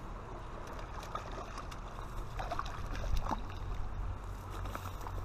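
Steady rush of river water with a low wind rumble on the microphone, and a few faint scattered ticks.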